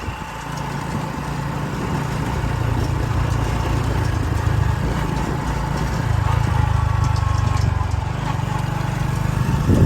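A small vehicle engine running steadily, slowly growing a little louder.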